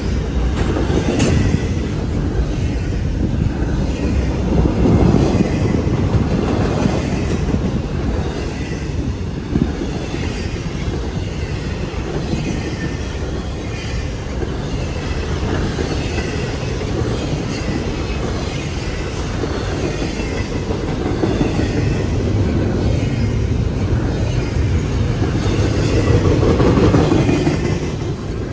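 Double-stack intermodal container train rolling past close by: a steady, loud rumble and clatter of steel wheels on the rails, with a single sharp clank about ten seconds in.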